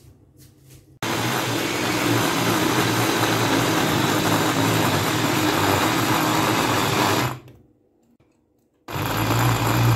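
Electric food chopper's motor running, its blade grinding a thick kofta mixture of beef mince, bread and gram flour in a glass bowl. One run of about six seconds cuts off, and after a pause of over a second a second run starts near the end.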